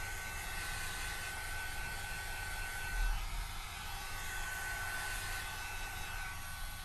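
Hot air brush (a small hair dryer) blowing steadily, with a thin high whine from its motor that drops out about three seconds in, together with a brief low thump, and returns a second or so later.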